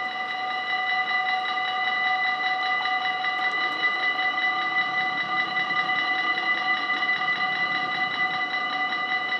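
Dutch level-crossing warning bell ringing rapidly and steadily in fast, even dings. It is the crossing's signal that it is closing for an approaching train, sounding while the barriers lower.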